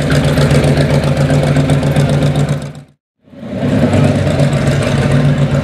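Hot rod pickup truck's exposed engine running through its short side pipes as the truck rolls slowly by, a steady rumble. The sound cuts out for a moment about halfway, then comes back.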